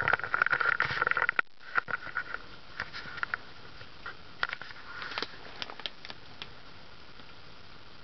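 Cast-aluminum spinner-motor ceiling fan coasting down after being switched off. Irregular light clicks and ticks come thickest in the first few seconds, and a faint whine fades away after about three seconds.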